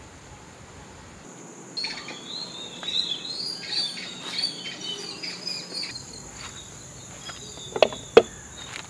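Birds chirping and warbling over a steady high insect drone, with two sharp knocks close together near the end.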